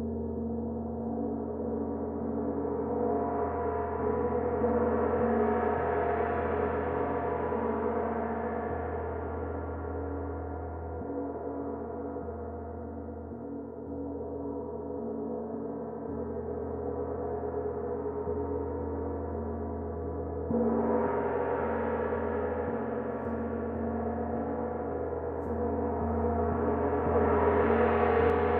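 Zildjian gong played with a soft mallet, its strokes blending into one long ringing wash that swells and ebbs. A firmer stroke about two-thirds of the way through brings a sudden lift, and the sound builds again near the end.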